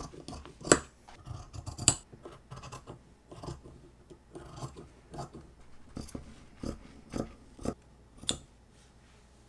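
Fabric shears cutting through thick faux sherpa fleece: a string of crisp snips at uneven intervals, the loudest within the first two seconds, with a steadier run of snips about every half second near the end.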